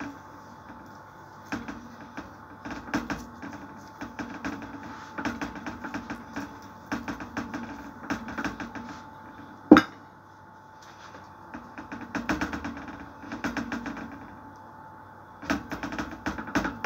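Pastry brush dabbing and stroking liquid onto raw dough on a metal baking tray, heard as bursts of quick soft taps, with one sharp clink a little before halfway. Near the end, fingertips dimple the dough in fast, louder taps against the tray.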